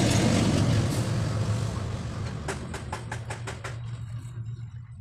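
A truck passing on the road: a steady low engine drone that fades away. Partway through comes a quick run of about eight sharp clicks.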